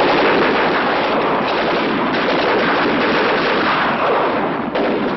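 Battle sounds: heavy gunfire and explosions running together into one dense, loud din, with a short dip about three-quarters of the way through.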